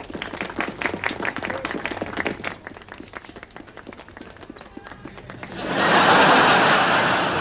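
Scattered hand clapping for about three seconds, thinning out, then a louder swell of crowd applause near the end.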